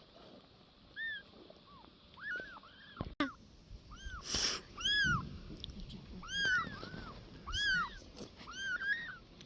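Cat meowing over and over: about a dozen short mews, each rising and falling in pitch. There is a brief noisy burst about halfway through.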